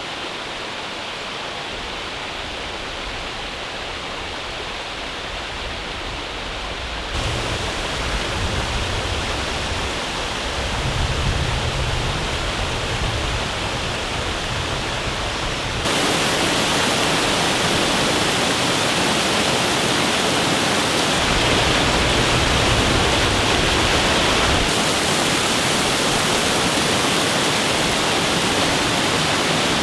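Waterfall cascading down a series of small rock steps: a steady rushing of water. It gets louder in sudden steps, about seven seconds in and again about sixteen seconds in.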